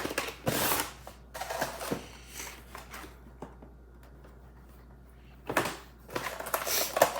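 Packaging of a Pokémon trading-card box rustling and clicking as it is handled and opened, in bursts at the start and again near the end with a quieter stretch in between.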